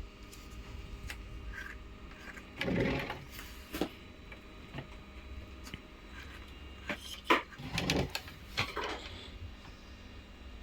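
Scattered light clicks, knocks and rustles of speaker parts and tools being handled during a recone, over a low steady hum. A louder rustle comes about three seconds in, and a cluster of knocks near the end.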